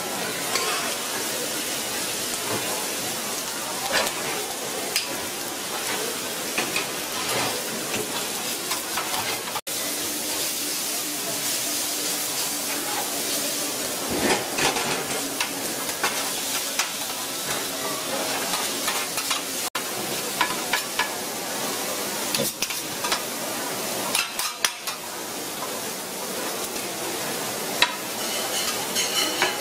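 Fried rice and noodles sizzling on a hot iron griddle, with steel spatulas scraping and clacking against the plate as the food is tossed. Near the end the spatulas scoop it into a bowl.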